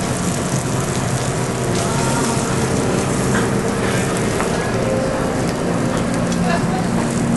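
Frying pans of fish and vegetables sizzling steadily in hot oil and butter on the stove, with a few light clinks.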